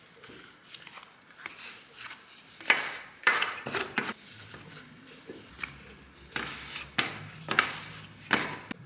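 Kitchen utensils knocking and scraping while scone dough is worked: a string of short, sharp knocks and scrapes, the loudest about three seconds in.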